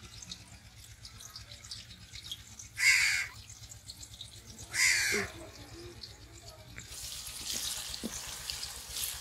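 A crow cawing twice, about three and five seconds in, each caw short and harsh. Near the end, a soft hiss of sliced onions frying in hot oil.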